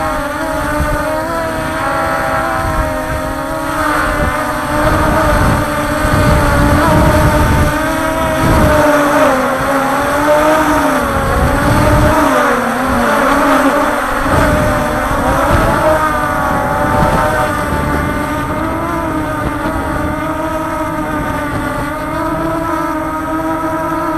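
Multirotor drone's electric motors and propellers whining as it flies, a stack of tones that waver up and down in pitch as the motors change speed, with wind rumbling on the microphone.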